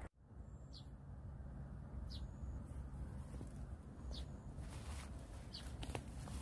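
A bird calling over and over, a short high note about every one and a half to two seconds, over a low steady rumble, with a few faint clicks near the end.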